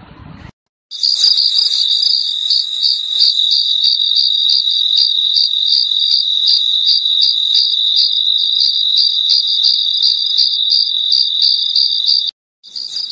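Loud, shrill insect chirring, a steady high trill pulsing evenly. It cuts out for a moment just before a second in and again near the end.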